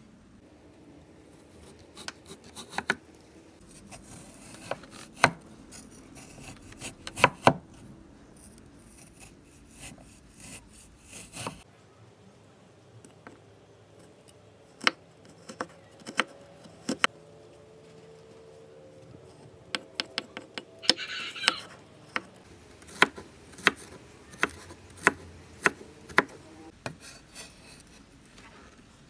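Stainless steel cleaver chopping through carrot onto a wooden cutting board: irregular knocks, some single and some in short quick runs, with a brief scrape about two-thirds through.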